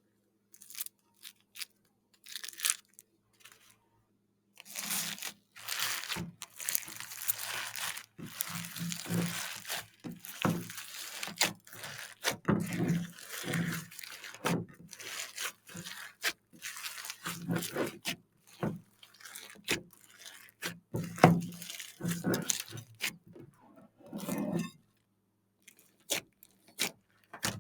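Slime with beads mixed in being squeezed and pulled by hand, giving irregular bouts of crunching and crackling with sharp clicks.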